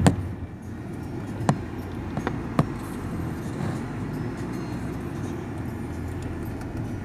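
Road noise of a moving car heard from inside it: a steady low rumble, with three sharp clicks, one right at the start, one about a second and a half in and one about two and a half seconds in.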